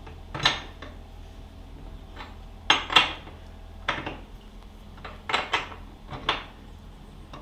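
Metal hand tools clinking and knocking: about nine sharp, short metallic clinks at irregular intervals, as a 32 mm socket and wrench are handled at a motorcycle's rear axle nut that has just been broken loose.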